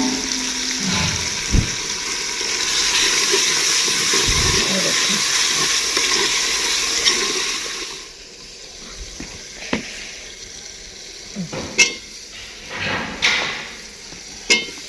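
Mungre (radish seed pods) stir-frying in oil in a pan, a loud steady sizzle with a utensil stirring through it. The sizzle cuts off about eight seconds in, and a few sharp metal clinks of a spoon against the pan follow.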